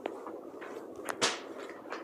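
A light click, then a sharper click with a short swish about a second in, over faint room noise.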